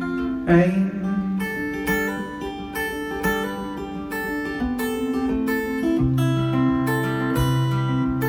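Live acoustic guitar strumming chords in an instrumental break between sung lines of a pop song, with a low sustained note joining about six seconds in.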